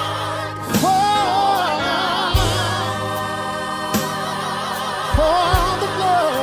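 Gospel worship song: a male lead singer and a group of backing singers sing over electric keyboard chords.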